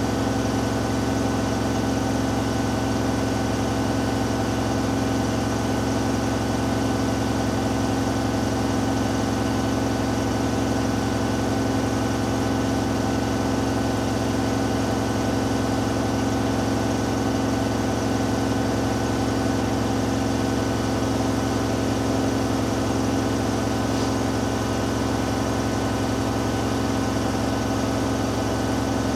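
Hoover Dynamic Next washing machine in its final spin, the drum turning at a constant speed with a steady motor whine and hum that does not change.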